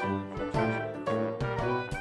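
Background music: an upbeat jazz instrumental with horns and a steady beat.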